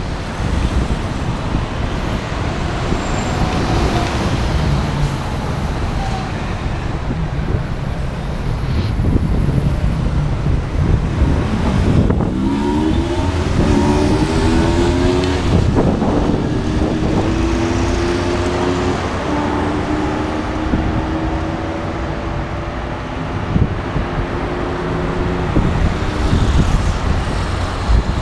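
Road traffic heard from a bicycle, with a rumble on the microphone. About 12 s in, a nearby vehicle's engine speeds up with its pitch climbing, then holds a steady drone for several seconds.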